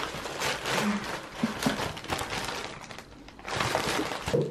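Plastic mailer bags and packaging crinkling and rustling as parcels are torn open and unpacked, with a short lull about three seconds in.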